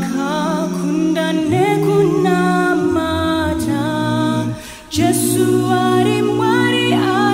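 A cappella vocal group singing in close harmony, without instruments: held low chords under a moving upper melody. The singing breaks off briefly about four and a half seconds in, then carries on.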